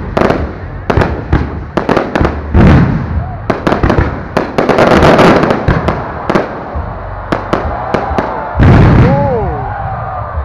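Aerial fireworks shells bursting close overhead in rapid succession: sharp bangs and crackling, with a dense crackle around five seconds in and a big blast near nine seconds.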